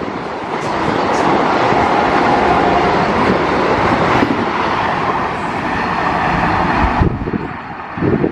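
Express train passing at high speed on the Indian Railways line, a loud steady rush of wheels on rail and air. The rush drops off sharply about seven seconds in, leaving a lower rumble.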